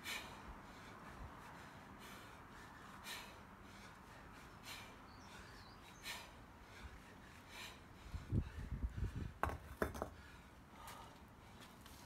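A man breathing out sharply in rhythm with kettlebell swings, a short hissing exhale about every second and a half. About eight seconds in comes a burst of low rumbling, like wind on the microphone, with two sharp knocks.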